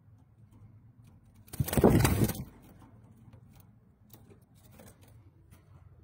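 A single loud rustling bump, under a second long, about one and a half seconds in, over a faint low hum with a few faint clicks.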